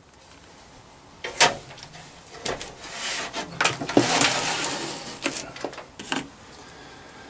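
A Heathkit SB200 amplifier in its metal case being tipped up onto its side on a wooden workbench: a run of knocks and clunks, with a scraping, sliding noise about four seconds in, then a few light clicks near the end.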